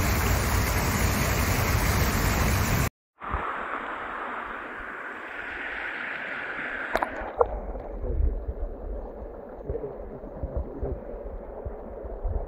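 Water of a shallow rocky stream running over stones, loud at first; after an abrupt break about three seconds in it is quieter, with occasional low thumps.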